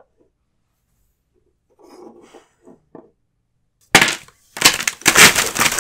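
Faint rustling, then from about four seconds in loud crackling and crinkling handling noise as Pokémon cards are moved right up against the camera's microphone.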